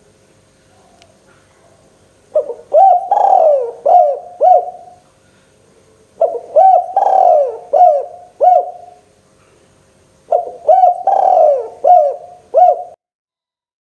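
Spotted dove (tekukur) singing: three cooing phrases a few seconds apart, each a run of several rounded coo notes.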